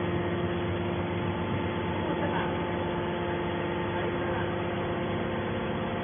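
Hydraulic scrap metal baler's power pack running: a steady electric-motor and hydraulic-pump hum with several constant tones.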